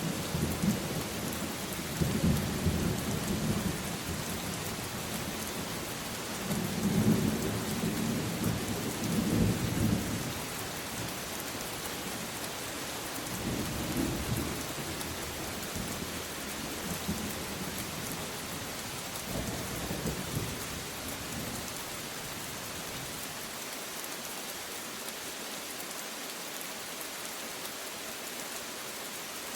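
Steady heavy rain with rolling thunder. The loudest rumbles come in the first ten seconds, weaker ones follow around the middle, and the last several seconds are rain alone.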